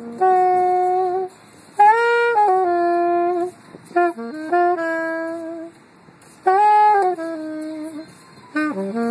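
Solo saxophone practice: phrases of long held notes, each rising or falling a step or two, broken by short breaths about every one to two seconds.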